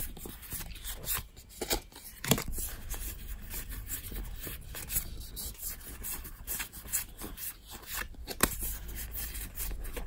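A hand-held stack of Cardfight!! Vanguard trading cards being flipped through, each card slid from the front to the back of the pile: dry card-on-card rubbing with many irregular soft snaps, the sharpest about two seconds in and again near eight seconds.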